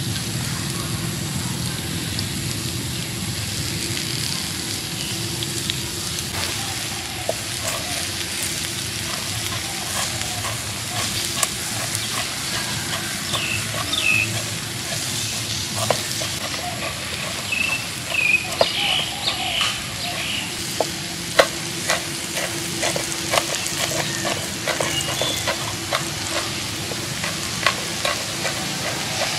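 Prawns sizzling on a hot stone slab over charcoal, a steady hiss. In the second half, a cleaver chops on a wooden cutting board in quick, irregular knocks.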